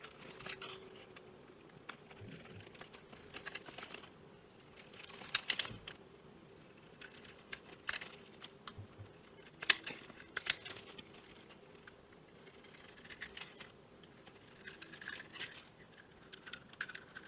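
Hands kneading and squeezing slime in a bowl, giving a string of small wet clicks and crackling pops as air pockets in the slime burst. A few louder pops come about five and ten seconds in.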